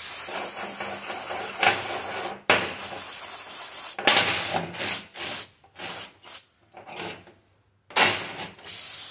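Aerosol brake cleaner spraying onto greasy timing gears and chains to degrease them, in hissing bursts: a long spray at the start, another about four seconds in, then shorter spurts, the last about eight seconds in.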